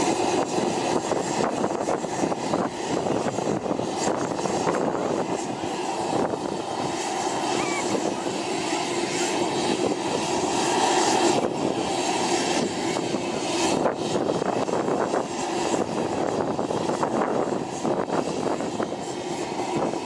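AgustaWestland Merlin (AW101) helicopter's three turboshaft engines and rotor running steadily.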